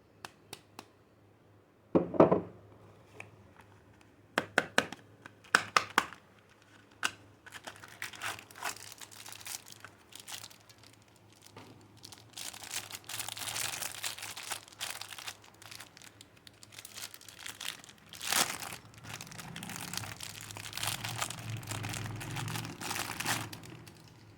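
Wrapping being crinkled and torn off a bar of soap. A few sharp clicks and a heavy thump come in the first seconds, then long stretches of crinkling and tearing.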